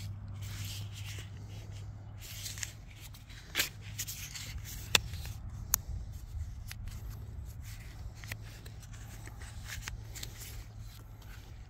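Hands handling black plastic drip-line tubing and a small fitting right at the microphone: rubbing and rustling, with a few sharp plastic clicks about three and a half, five and six seconds in, over a steady low hum.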